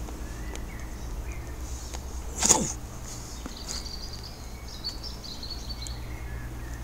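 A single quick whoosh, sweeping down in pitch, about two and a half seconds in, followed by a bird twittering faintly for a couple of seconds over outdoor background noise.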